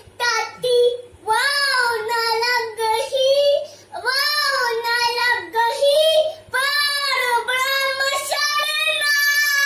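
A young boy singing a Punjabi devotional song solo and unaccompanied, in long drawn-out phrases with short breaths between them.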